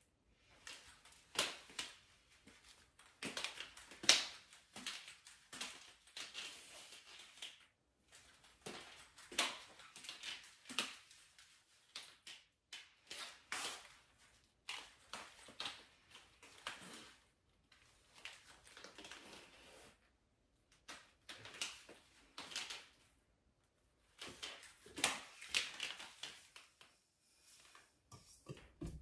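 High-heeled ankle-strap sandals clicking on a tile floor as she walks: sharp, irregular heel strikes in runs, with short pauses between.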